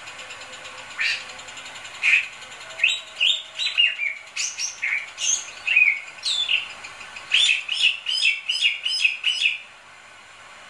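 Bali myna singing a string of loud, sharp whistled notes that sweep up and down, quickening into a fast run of notes near the end.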